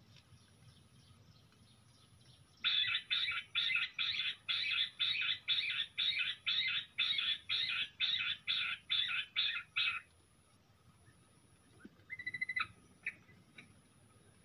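Bush quail calling: a rapid, regular series of about twenty harsh notes, nearly three a second, lasting about seven seconds. A few short chirps follow near the end.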